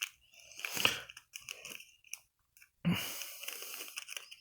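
Crinkling and rustling of trading-card pack wrappers and cards being handled, in a couple of short bursts and one longer one about three seconds in.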